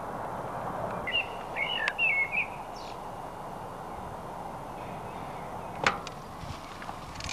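A bird chirping a quick run of warbling notes about a second in, over steady background noise, with a single sharp click near the end.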